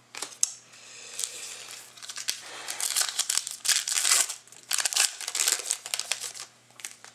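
Crinkling and tearing of a foil wrapper as a pack of Panini Zenith hockey trading cards is opened and handled, in irregular bursts over several seconds.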